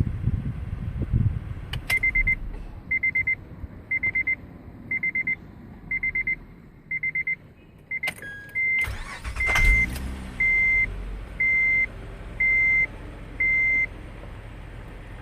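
2007 Acura TL start-up: the dashboard warning chime pulses about once a second, then the starter cranks and the engine catches about nine seconds in with a loud knock, the unexplained knock on starting that the owner is asking about. After that, single chime beeps repeat about once a second over the engine idling.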